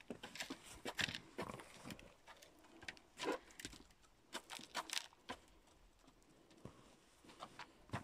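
Footsteps in rubber boots crunching through deep snow, irregular steps.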